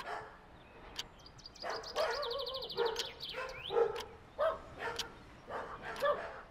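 A dog barking repeatedly, in short separate barks spread through the moment.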